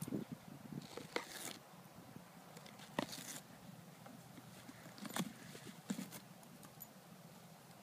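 Great Dane biting and chewing a green coconut: sharp cracks and crunches of teeth in the husk, four or so spread a second or two apart, with brief scratchy tearing around some of them.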